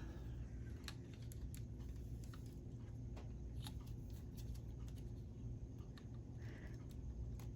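Faint, irregular small plastic clicks and taps from K'nex rods and connectors being handled and snapped together, over a low steady hum.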